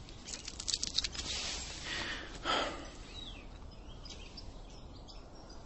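Quiet room tone with a few faint clicks in the first second and a soft swell of noise about two and a half seconds in, with faint bird chirps in the background.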